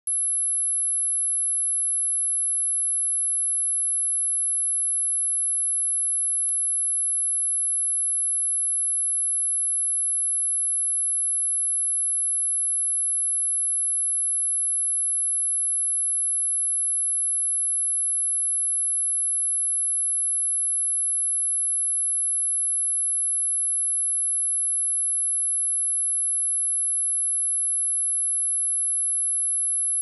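Steady 11011 Hz sine-wave test tone: one pure, very high-pitched whistle held unchanged, of the kind played to test speakers or headphones and to shake water and dust out of a speaker.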